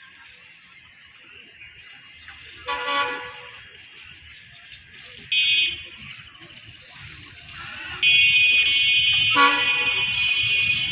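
Bangladesh Railway diesel locomotive air horn sounding. A short lower blast comes about three seconds in and a brief higher toot about five seconds in. From about eight seconds a long, loud, higher blast runs until it cuts off at the end, with a second short lower blast sounding over it about nine and a half seconds in.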